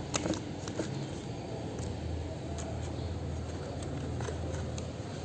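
Light clicks and taps of a cat biting and pawing at a plastic toy strip, a few near the start and one about a second in, over a steady low hum.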